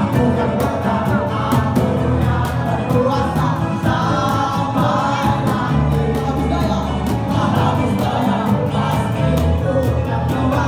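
Live indie folk band playing with a male lead singer on a microphone, many voices singing along, over a quick steady beat.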